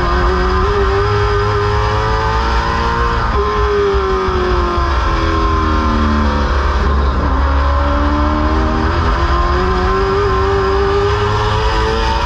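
Late model stock car's V8 engine at racing speed, heard from inside the cockpit as it laps a short oval. The engine note climbs for about three seconds, drops as the driver lifts into the turn, sags slowly through the corner, then climbs again on the next straight until another lift near the end.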